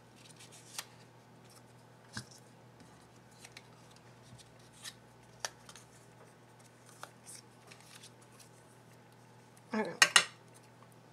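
Quiet handling of small paper cut-outs: scattered light ticks and rustles as a pen writes numbers on their backs and the pieces are picked up and turned over. About ten seconds in comes a short cluster of louder clacks.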